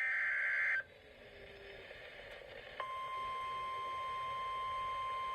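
Emergency Alert System signalling on NOAA Weather Radio. It opens with the last of the screeching SAME digital data bursts that head a new warning, lasting under a second. After a short gap, the steady 1050 Hz warning alarm tone sounds from about three seconds in, the attention signal before a severe thunderstorm warning is read.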